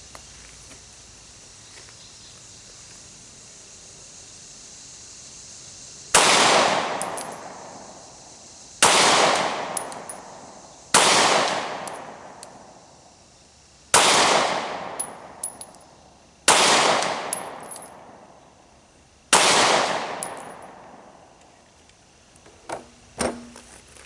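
Six shots from a Glock 43 9mm subcompact pistol, fired slowly one at a time about two to three seconds apart, each with a long echo fading away. A few light knocks near the end.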